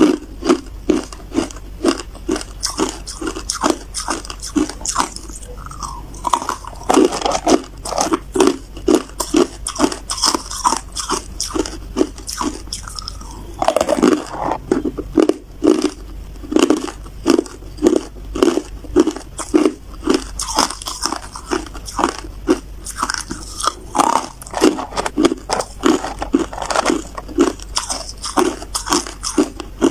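Close-up crunching of ice cubes being bitten and chewed: a steady run of sharp crunches, a few a second, with a short pause about halfway through.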